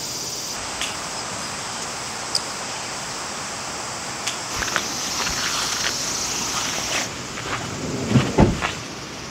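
Summer evening outdoor ambience: a steady chorus of insects with a background noise haze. Scattered clicks and knocks run through it, and a few low thumps come about eight seconds in.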